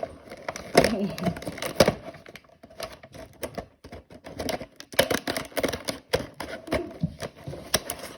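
Plastic toy packaging being worked open by hand, an irregular run of crackles and sharp clicks.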